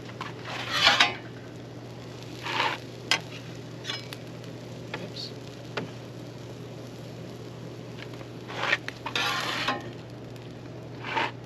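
Metal griddle tools scraping and clattering on a Blackstone flat-top griddle in a few short strokes, over food sizzling on the hot plate.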